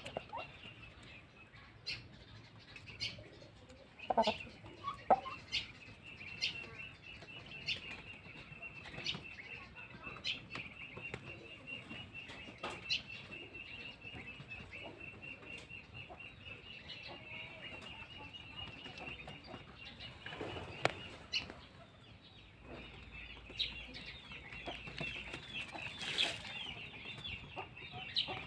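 Free-ranging chickens clucking now and then, with scattered short sharp ticks, over a steady, high, rapidly pulsing chirp that drops out for a moment about two-thirds of the way through.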